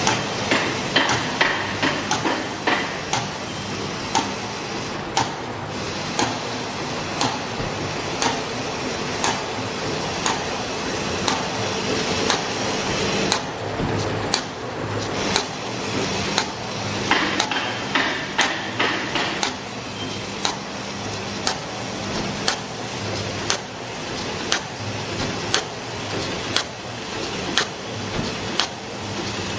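On-roll plastic garbage bag making machine running, a steady mechanical hum with a regular sharp clack a little more than once a second as it cycles through sealing and cutting the film.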